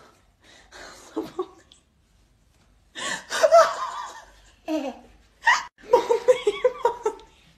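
A person laughing heartily in bursts, loudest near the end as a quick run of 'ha-ha-ha' pulses.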